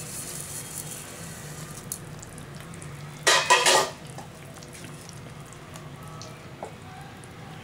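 Cracked wheat rava hissing as it pours from a metal bowl into a pot of boiling water. About three seconds in comes a brief, loud clatter of metal dishes, then quieter scraping as a wooden spatula stirs the grains in.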